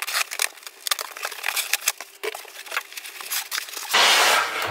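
Cardboard shipping box being opened: a run of crackling clicks as the packing tape is cut and peeled and the flaps pulled open. About four seconds in comes a louder rustling scrape as a foam packing block is lifted out of the box.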